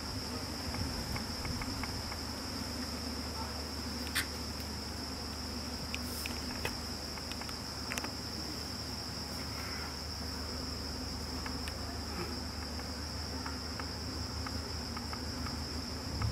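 Steady high-pitched insect shrilling that holds one unbroken tone, over a low steady hum. A few faint clicks and knocks sound around four to eight seconds in.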